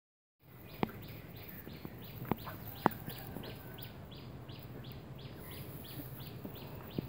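A short high chirp repeated steadily about three times a second, with a few sharp knocks standing out over it.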